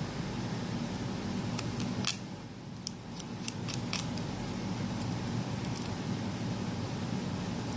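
A scatter of small, sharp clicks and ticks from small repair tools and parts being handled while an iPhone 6 is taken apart, bunched about two to four seconds in with a few more later, over a steady background hum.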